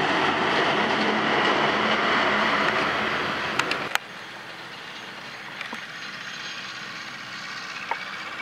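A large modern tractor towing a loaded dump trailer drives past, its engine and running gear loud. About four seconds in the sound cuts abruptly to a much quieter, steady engine hum from an old tractor working along a field track.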